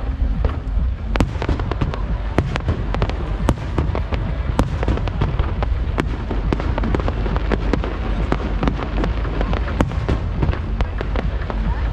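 Fireworks display: aerial shells and lower-level effects bursting in an irregular, rapid volley of sharp bangs and crackling over a deep rumble.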